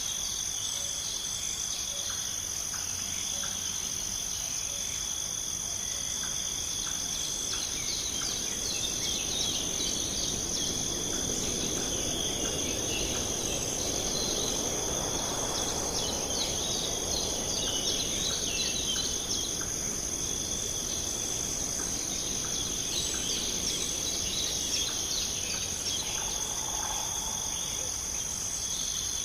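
Steady chorus of crickets, a constant high trill that runs on unbroken, with scattered short bird chirps over it. A soft rushing noise swells and fades in the middle.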